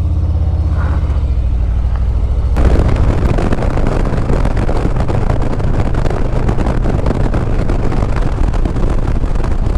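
Harley-Davidson V-twin motorcycle engine running with a low, even beat. About two and a half seconds in, the bike pulls away: engine noise and wind rush jump up suddenly and stay loud.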